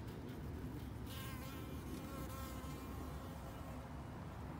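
A honeybee's wings buzzing as it lifts off and flies away from the rim of a water bowl. The buzz starts about a second in and fades out over the next two seconds.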